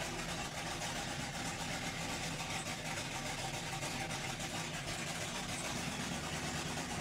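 Bigfoot 5 monster truck's engine running steadily at low speed as the truck crawls and steers, with no revving.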